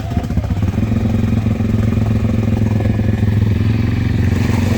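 Off-road vehicle's engine running steadily, its pitch rising slightly about a second in.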